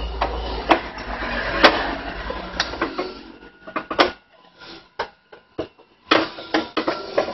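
Irregular metallic clicks and knocks of bolts and a screwdriver being fitted to a power amplifier's transistor heatsink. A low hum runs under the first three seconds, then stops.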